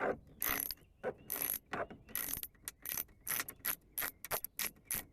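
Hand socket ratchet backing out a 10 mm door-panel bolt, its pawl clicking in short bursts on each return stroke, with the strokes coming quicker and more evenly in the second half.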